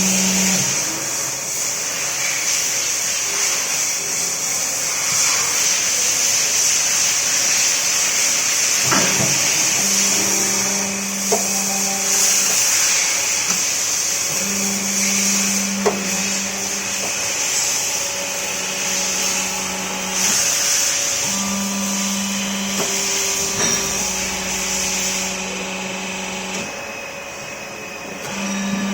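Hydraulic tapping and drilling machine running: a steady high hiss, with a low hum that switches on for two to three seconds at a time, several times over, and a few sharp clicks.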